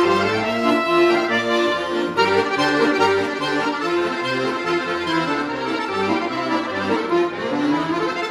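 Ottavianelli chromatic button accordion playing a lively polka: a fast right-hand melody over a steady oom-pah of alternating bass notes and chords.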